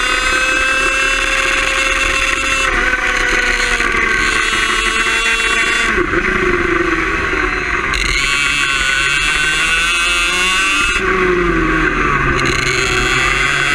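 Onboard sound of a kart's BMB HAT two-stroke engine running hard at high revs. Its pitch drops as the driver lifts off for a corner about halfway through and again near the end, then climbs back as he gets on the throttle.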